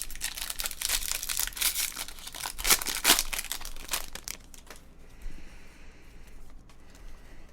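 Foil trading-card pack wrappers crinkling and tearing as packs are opened and cards handled, busy for about the first five seconds and then quieter.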